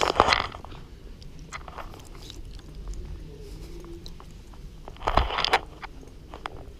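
Handling noise from a close-held action camera: rustling and rubbing against clothing, with scattered light clicks. There are two louder bursts of rustle, one at the start and one about five seconds in.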